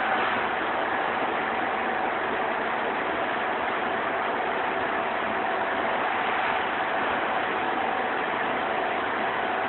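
Truck-mounted shotcrete pump and spraying rig running steadily, a continuous machine drone and hiss with faint steady hum tones.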